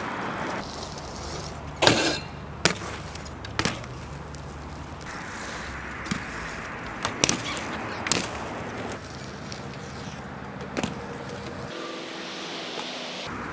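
A BMX bike being ridden, its tyres rolling steadily, with about seven sharp knocks and slaps from landings and tricks.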